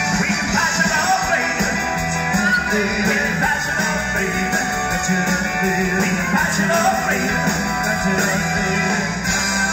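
Live rock and roll band, with electric guitar, bass and drums, playing through a PA, while a male singer sings into a microphone over it.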